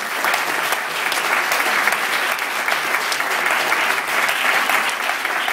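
An audience applauding: many hands clapping steadily.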